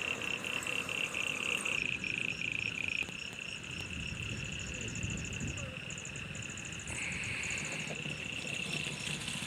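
A chorus of insects and frogs calling in rapid, evenly repeated high-pitched trills. The loudest, pulsing call stops about three seconds in, and a steadier buzzing call at a similar pitch comes in about seven seconds in.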